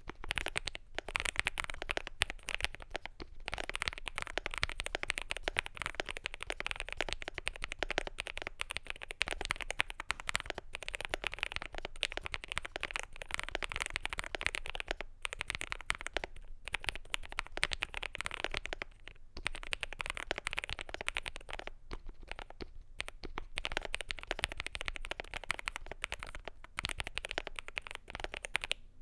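Continuous fast typing on a CIDOO V65 mechanical keyboard with lubed, filmed Quake Matte linear switches, a polycarbonate plate and PBT keycaps. The keystrokes come as a dense run of clacks, broken by short pauses every few seconds.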